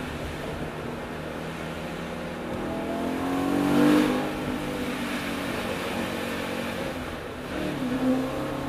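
BMW E92 M3's 4.0-litre V8 running through its M Performance Inconel exhaust, heard from outside the car at road speed. It accelerates with a rising pitch that peaks about four seconds in, settles into a steady cruise, then swells briefly again near the end.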